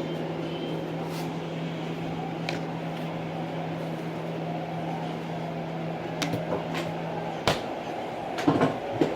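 Steady electrical appliance hum with a low tone, cut off by a sharp click about seven and a half seconds in, followed by a few short clattering knocks.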